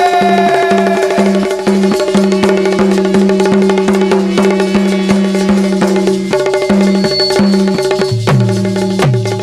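Instrumental passage of Bundeli Rai folk music: hand drums played in a fast rhythm over a steady held note and a repeating pulsed note, with a few deep drum strokes that drop in pitch near the end.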